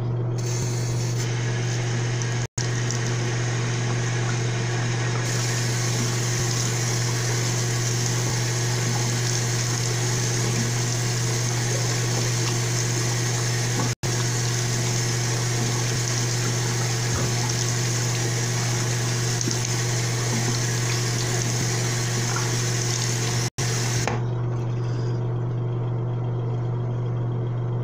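Bathroom sink tap running steadily while a face cleanser is rinsed off with splashed water. The water shuts off a few seconds before the end.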